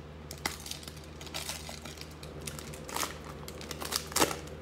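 Plastic trading-card pack wrapper crinkling and crackling as it is torn open and the cards are pulled out, in irregular sharp crackles, the loudest about four seconds in.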